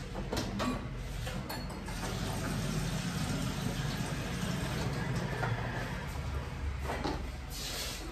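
A few clinks and knocks of kitchen utensils, then water starting to pour into a kadhai near the end.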